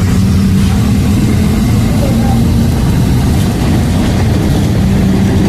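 A vehicle engine idling with a steady low hum, over a continuous hiss of rain.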